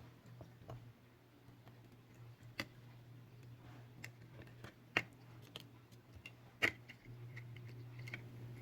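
Scattered small clicks and taps of tools and parts while a smartphone is reassembled, three of them sharper than the rest, over a steady low hum.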